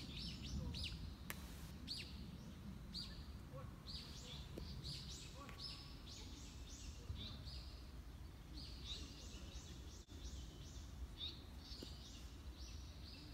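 Small birds chirping: many short, high notes repeating throughout, over a low steady rumble.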